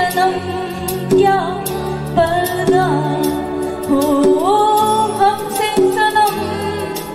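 A woman singing a Hindi film song live into a microphone, her voice gliding through a slow melody, backed by a keyboard and hand drums.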